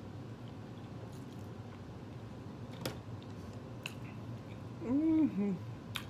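A person chewing a mouthful of food, with a few sharp mouth clicks. About five seconds in comes a short two-note hum, rising then falling.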